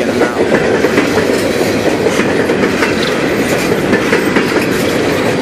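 Empty steel coal hopper cars rolling past at close range: a steady, loud rumble of wheels on rail, with light clicks as the wheels cross the rail joints.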